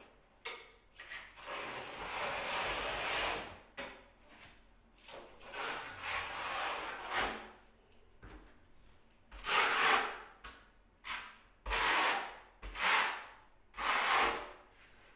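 A trowel scraping tile adhesive across a wall, spreading and combing it. There are two long strokes, then four short strokes about a second apart near the end.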